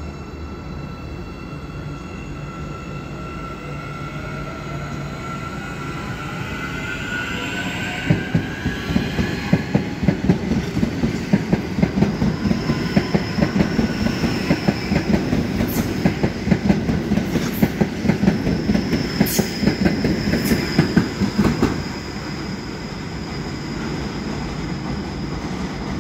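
CPTM Hyundai 9500-series electric multiple unit pulling out and passing close by. An electric whine rises in pitch as it gathers speed. Then its wheels clack rapidly over the rail joints, with a high wheel squeal and a few sharp screeches, as the cars roll past. The sound drops to a steady rumble near the end as the train moves away.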